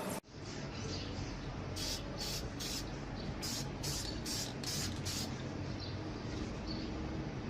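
A run of about eight short hissing bursts in quick succession, over a steady low background noise.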